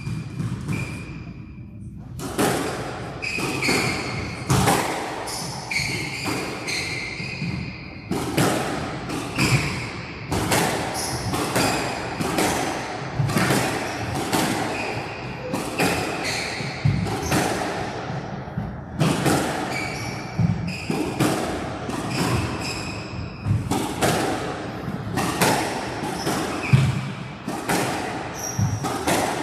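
A squash rally: the ball is struck by rackets and smacks off the court walls in a long run of sharp hits, about one or two a second. Short squeaks, most likely shoes on the court floor, sound between the hits.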